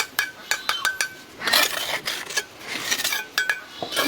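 A run of sharp clinks of hard objects knocking together, each with a brief ringing note, broken by two stretches of scraping.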